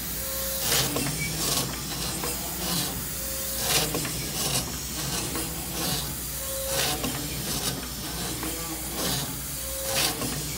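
A 1919 50-ton railway steam crane's engine running on compressed air instead of steam: rhythmic hissing exhaust puffs, about one every three-quarters of a second, over a steady low hum. A short squeak recurs about every three seconds.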